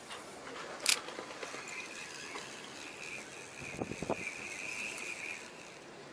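Spinning reel being cranked on a lure-fishing rod: a sharp click about a second in, then a steady high whirr from the reel's retrieve for a few seconds, with a couple of soft knocks in the middle.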